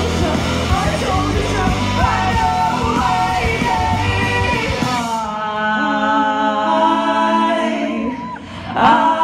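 Punk rock band playing live through a PA: distorted guitars, bass and drums under loud sung and shouted female vocals. About five seconds in, the drums and bass drop out, leaving held sung notes. The loud vocals come back near the end.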